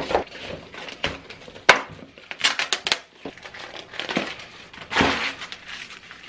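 Padded shipping envelope being cut and torn open by hand and teeth: irregular crinkling and ripping of plastic and paper packaging, with one sharp knock a little under two seconds in and the longest, loudest tear about four seconds in.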